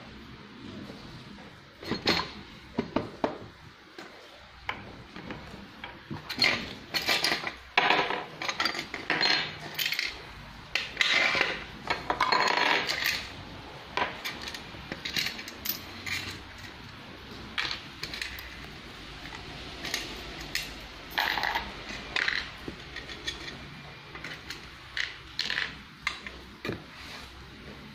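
Small metal sewing machine accessory parts clinking and clattering as they are picked out of the machine's oil pan and set down on the table top, with irregular knocks and handling noise.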